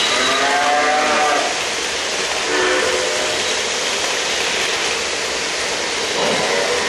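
An O-gauge model freight train rolls past on three-rail track with a steady rolling rumble of wheels. Several pitched calls from its electronic sound effects sound over it: one near the start that bends in pitch, one about three seconds in and one near the end.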